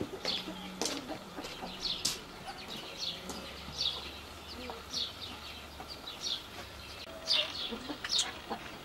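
Birds chirping: short, high, falling chirps repeated every second or so, with a few sharp clicks between them.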